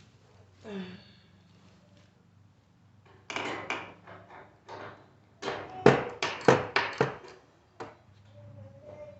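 Hand tools and metal parts being handled: a scraping rustle, then a quick run of about six sharp knocks and clatters, with one more click near the end.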